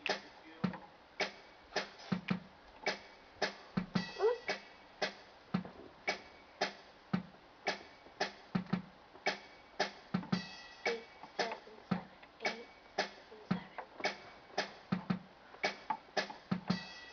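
A steady drum-machine beat from an electronic keyboard's built-in rhythm: evenly spaced sharp hits over low kick-drum thumps, with a few short keyboard notes.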